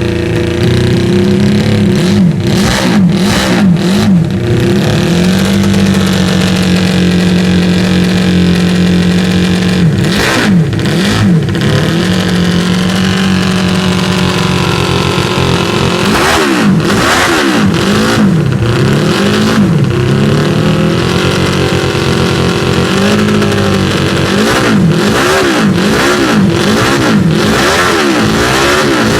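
Benelli 250 motorcycle engine running loudly at a steady fast idle and blipped in several runs of quick revs that climb and drop sharply.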